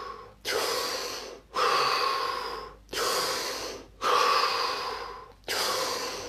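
A man taking loud, deliberate deep breaths through the mouth, in and out one after another. Each breath is about a second long with a brief break between, about five in a row, some blown out through pursed lips.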